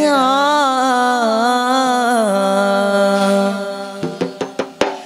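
Male voices singing a Malayalam madh devotional song, holding one long ornamented note that bends in pitch and fades out about three and a half seconds in. In the last second comes a quick, uneven run of sharp percussion strikes.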